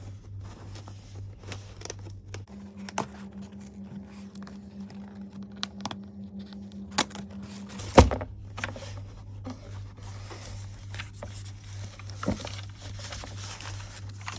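Cardboard box and plastic packaging of a mechanical keyboard being opened and handled: tearing, crinkling and scraping, with a sharp knock about eight seconds in.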